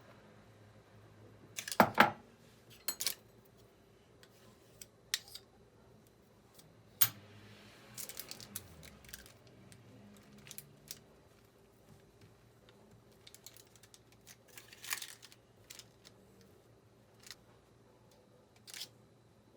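Scattered clicks, taps and light knocks of objects being handled, with the loudest knocks about two seconds in.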